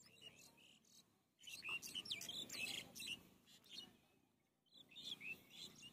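Bare hands digging and scooping wet mud in three bouts, the longest about a second and a half in, with bird chirps over them.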